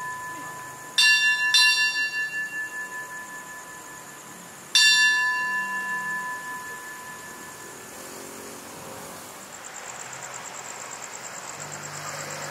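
Railway station's signal bell, a metal bell struck three times: two strikes close together about a second in and a third near five seconds, each ringing clear and fading slowly. This is the bell that announces an approaching train. Near the end a faint low hum sets in from a diesel locomotive approaching in the distance.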